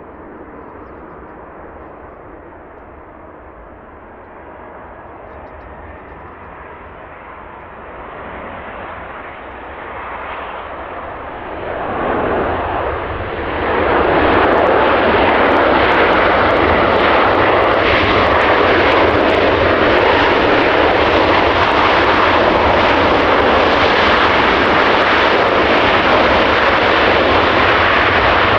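CFM56 jet engines of a Boeing 737-800 airliner, a roar that grows gradually louder and then holds loud and steady from about halfway through as the aircraft comes close.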